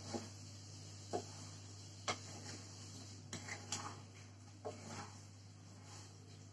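Wooden spatula stirring whole amla through grainy, just-melting sugar in a nonstick kadhai. It makes light, irregular knocks and scrapes against the pan, about one a second, with a quick cluster a little past the middle, over a steady low hum.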